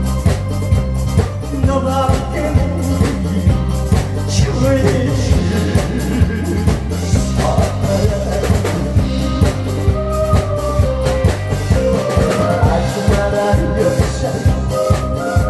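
Upbeat Korean trot-style song played loud, with a steady drum-kit beat under a sung melody.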